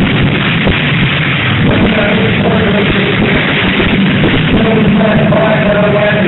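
Loud rock music with a dense, steady din beneath it.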